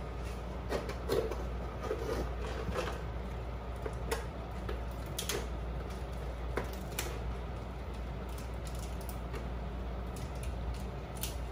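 Crab legs being pushed down into a pot of gumbo: soft wet squishes in the first few seconds, then scattered small clicks and knocks of kitchen handling over a steady low hum.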